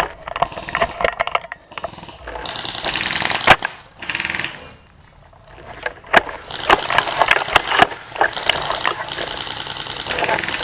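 Airsoft guns firing rapid bursts of clicks, in two long stretches, with a few sharp single cracks in between.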